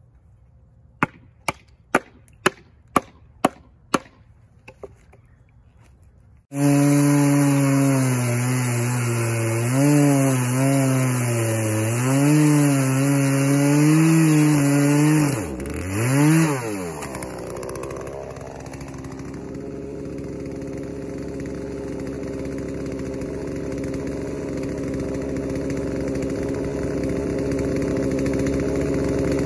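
A run of about eight sharp hatchet strikes on a cedar log, about two a second. Then a two-stroke chainsaw comes in at high revs and cuts through the cedar bowl blank, its pitch wavering up and down under load, revs once more, and settles into a steady idle.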